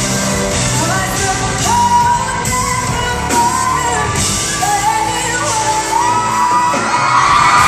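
Live pop music in a concert hall: a female lead singer sings over a band with electric guitars and bass. Her line climbs in steps and builds to a long held high note near the end.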